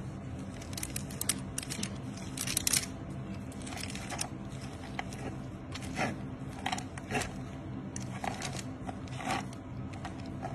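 Knife and fork working through a piece of smoked meat on butcher paper: a dozen or so sharp crackles and scrapes as the blade cuts the crusty bark and the fork pulls the meat apart, the loudest about two and a half seconds in, over a steady low hum.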